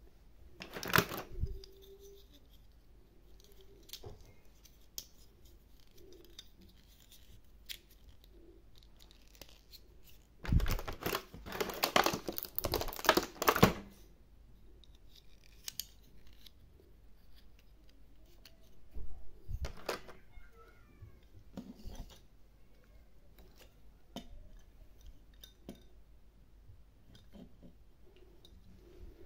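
Plastic toy figures and their clear plastic blister tray being handled: scattered clicks and taps, with a louder stretch of crackling and rustling about ten to fourteen seconds in.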